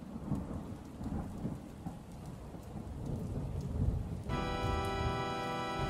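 Thunderstorm: low rumbling thunder over steady rain. About four seconds in, music comes in with a held chord.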